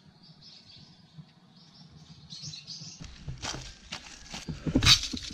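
Faint bird chirps, then from about three seconds in dry leaf litter crunching and rustling, with sharp scrapes and knocks, as the leaves in a concrete drain gutter are stirred with a small hand tool. The loudest crunch comes near the end.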